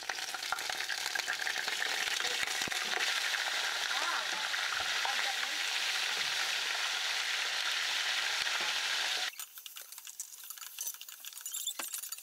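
Raw chicken pieces sizzling in hot oil and ghee with fried onions, stirred with a wooden spoon: a steady sizzle that cuts off suddenly about nine seconds in, leaving a quieter crackle of browned chicken frying.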